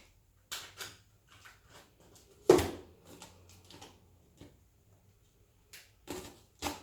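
Short knocks, scrapes and rustles of a heavy parcel being handled and cut open, with one loud thump about two and a half seconds in.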